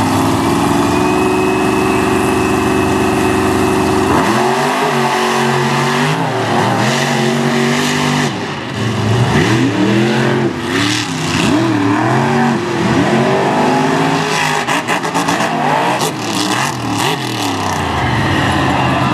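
Monster truck engine held at a steady speed for a few seconds, then revved hard over and over, its pitch rising and falling with each blip, before settling again near the end.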